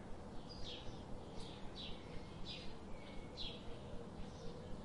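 Birds chirping: short, high, downward-sliding chirps repeated about every half second, over a steady low background noise.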